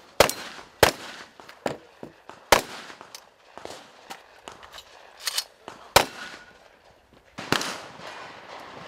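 Fireworks going off: about eight sharp, loud bangs at uneven intervals, several followed by a crackling tail.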